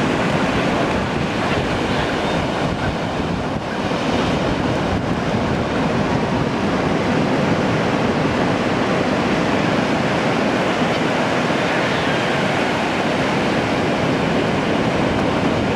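Surf washing steadily onto the beach, with wind buffeting the microphone.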